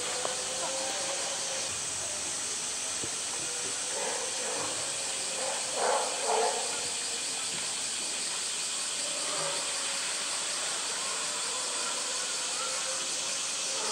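Water splashing as a polar bear moves in its pool beside a floating toy, in short bursts about four and six seconds in, over a steady hiss.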